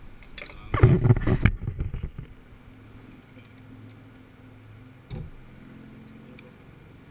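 Hand tools being handled over a metal socket set: a loud clatter and rustle about a second in, then a few faint clicks as an extension and socket are fitted onto a ratchet, over a low steady hum.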